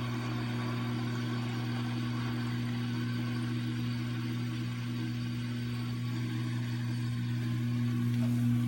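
Steady low electric hum of a washing machine's drain pump running as it pumps water out through its drain hose.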